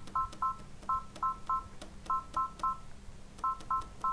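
Computerised domestic sewing machine beeping at each press of its thread-tension button as the top tension is turned right up. About a dozen short two-tone beeps come in quick groups of two or three, each with a faint click.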